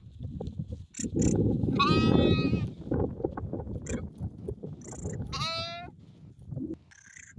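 Sheep bleating twice: a longer wavering bleat about two seconds in and a shorter one past the middle, over a low rough noise.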